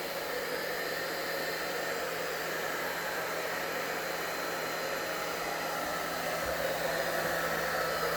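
Hair dryer running steadily, blowing warm air to dry a wet Silkie chicken's feathers, with a steady hum under the rush of air.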